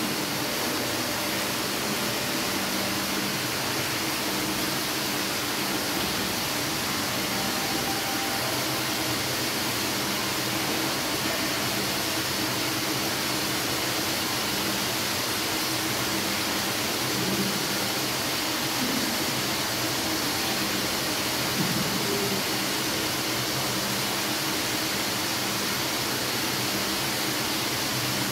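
Steady, even hiss of background rush, brightest toward the top, with a faint low hum beneath it and no break or change.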